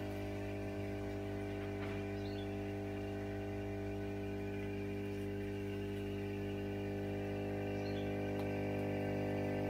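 Steady electrical hum: one low tone with a stack of evenly spaced overtones, unchanging throughout and growing slightly louder near the end.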